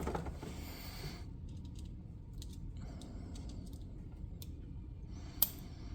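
Faint, scattered small clicks and taps of hand tools working at a Master Lock M530 padlock being taken apart, with one sharper click near the end.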